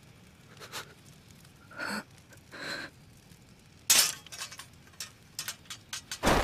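Anime sound effects: two short, faint breaths, then about four seconds in a sharp metallic click as a hand tightens on the omni-directional mobility gear's blade grip, followed by a few small metal clicks.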